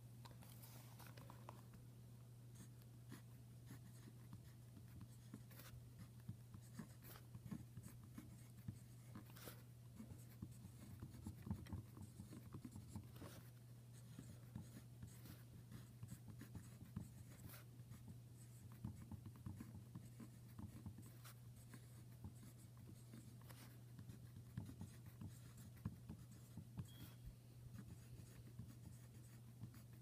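Pilot S20 0.5 mm mechanical pencil writing on lined paper: faint scratching of the lead in many short strokes, over a low steady hum.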